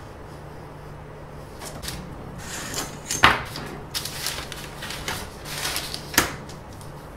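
Handling noises on a workbench: a sheet being slid and rubbed, with two sharp knocks about three and six seconds in, the second as a steel ruler is laid down on the sheet. A steady low hum underneath.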